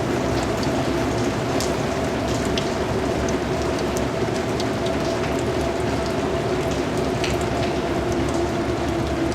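Steady rain falling, with scattered individual drops ticking above the even hiss and a faint steady hum underneath.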